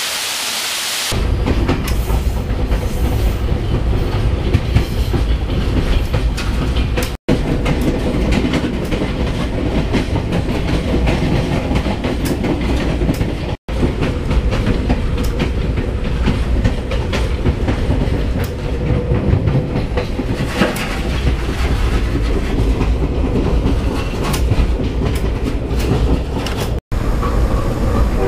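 Budd Rail Diesel Car (Via Rail Dayliner) running along the line, heard from inside the passenger car: a steady low rumble with wheels clicking over the rail joints. It opens with about a second of waterfall rush, and the sound cuts out for an instant three times.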